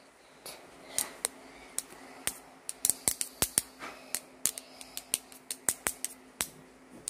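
Pens tapping and clicking against the phone close to its microphone: a string of sharp, irregular clicks that come faster, several a second, from about two and a half seconds in, over a faint steady hum.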